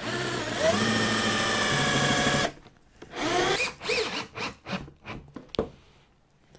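Cordless drill/driver running steadily for about two and a half seconds while fastening the plywood bottom of a wooden cabinet, then cut off. A few short bursts follow, with its motor speeding up and slowing down.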